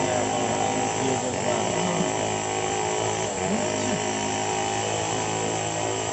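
Steady motor drone at a constant pitch, with a few faint rising and falling cries over it between about one and four seconds in.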